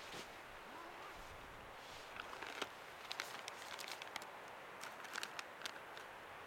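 Faint steady outdoor hiss, and from about two seconds in, many small clicks and rustles of hands handling a camera.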